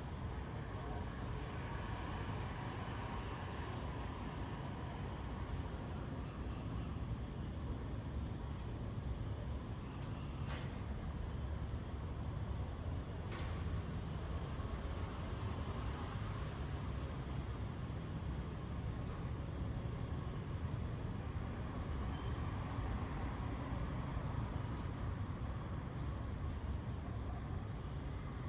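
Crickets chirping in a steady, even pulse at one high pitch, over a constant low rumble. Two sharp clicks about ten and thirteen seconds in.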